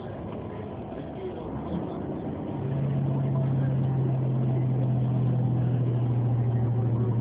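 Steady engine and road noise inside a moving truck's cab, joined about two and a half seconds in by a loud, steady low drone that holds on unchanged.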